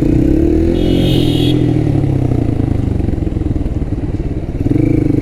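Motorcycle engine running as the bike is ridden at low speed, its pitch rising and then falling about a second in before settling. A brief high-pitched tone sounds about a second in.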